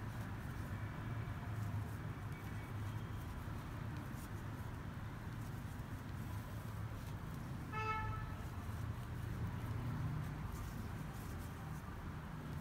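Steady low background rumble of distant traffic, with one short pitched toot about eight seconds in.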